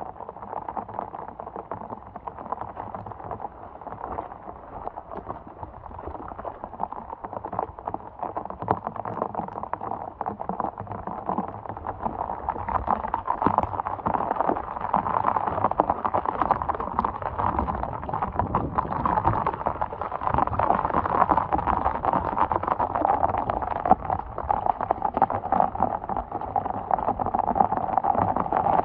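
Heavy rain, with footsteps splashing through shallow runoff and mud in water-filled boots. The rain grows louder about halfway through.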